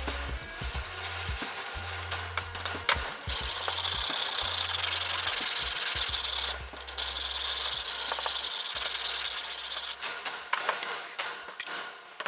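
Wooden cutting-board handle being sanded by hand with sandpaper, a steady scratchy rubbing that stops briefly about six and a half seconds in. Near the end it breaks into a few short separate strokes. The sanding takes old glue off the end piece before it is reglued.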